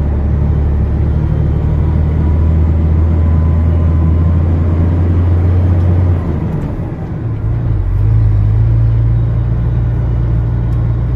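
A truck's diesel engine running under load on a climb, heard from inside the cab. About six seconds in the engine note drops away, and near eight seconds it picks up again at a higher pitch.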